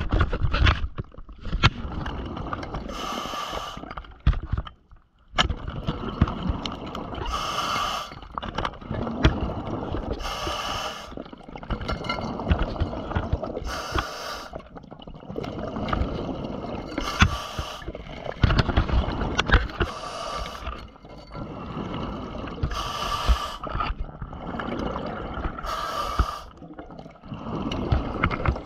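Scuba diver breathing through a regulator underwater: a rush of exhaled bubbles about every three seconds, with quieter breathing noise between. Scattered sharp clicks and scrapes come from handling the pole spear and the lionfish containment tube.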